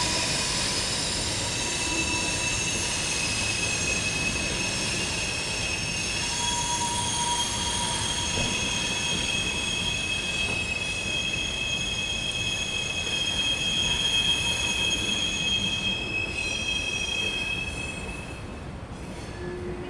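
Norfolk Southern freight train's steel wheels squealing as its cars roll past: several steady high-pitched squeals over the rumble of the rolling cars, fading near the end.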